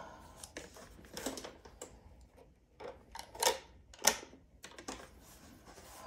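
Scattered plastic clicks and knocks from handling a eufy RoboVac X8 Hybrid robot vacuum as its roller brush and brush guard are fitted back into place, the sharpest click about four seconds in.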